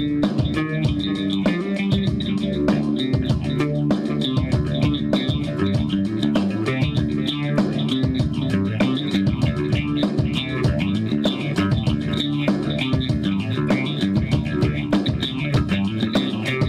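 Background music: guitar-driven rock with bass guitar and a steady beat.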